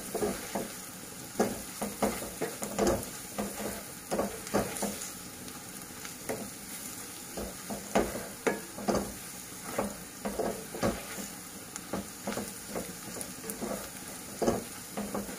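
Chopped onions and ground spices sizzling as they fry in oil in a nonstick kadai, with a plastic spatula scraping and knocking against the pan at irregular intervals as they are stirred.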